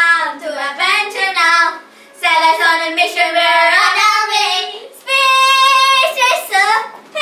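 Young girls singing a short unaccompanied song, in phrases with long held notes and short breaks between them.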